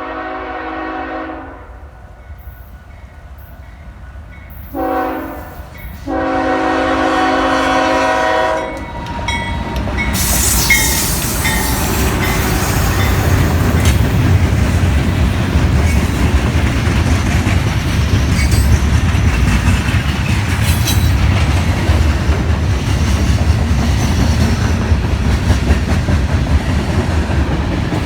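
Freight locomotive's multi-chime air horn sounding a crossing pattern: a long blast ending about a second in, a short blast, then a long one. From about nine seconds the CSX mixed freight train passes close by, locomotive and wagons running loudly with wheels clattering over the rail joints and a brief squeal near the start.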